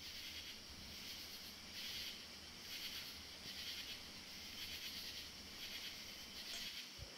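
Faint chorus of night insects chirping, a dense high-pitched buzzing that swells in waves about once a second.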